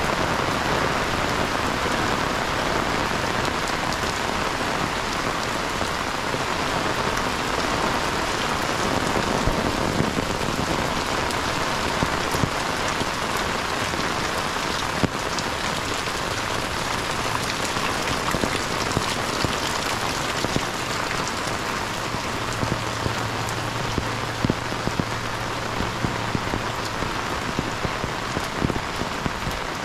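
Heavy rain falling steadily, a dense even hiss with scattered sharper drop impacts through the second half.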